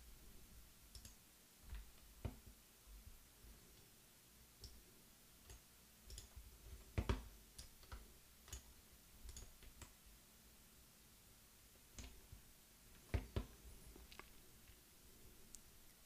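Scattered computer mouse clicks against near silence, the loudest coming as pairs of clicks about seven seconds in and again around thirteen seconds in.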